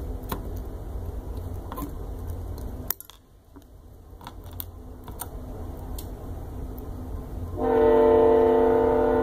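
A train horn sounds one long, steady blast starting near the end, by far the loudest sound here. Before it come scattered small clicks from handling tiny parts with tweezers.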